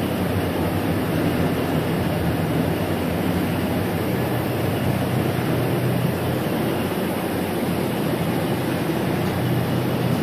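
Spray booth ventilation fans running: a steady rush of moving air with a low hum underneath.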